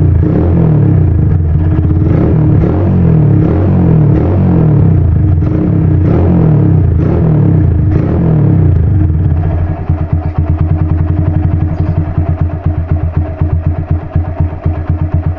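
Music with a repeating beat for the first nine seconds or so. Then a Honda Megapro's single-cylinder engine runs at a steady idle through an aftermarket racing exhaust, with a loud, fast, even popping pulse.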